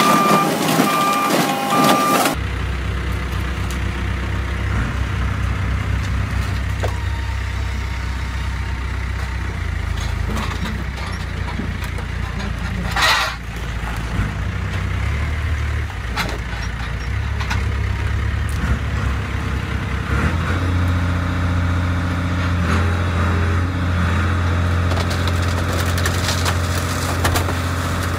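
For the first two seconds an excavator's reversing alarm beeps steadily over its engine. After that, a mobile car crusher's diesel engine and hydraulics run with a steady low drone as the crusher lid is lowered onto a car. The engine note shifts a few times, with a brief hiss a little before halfway.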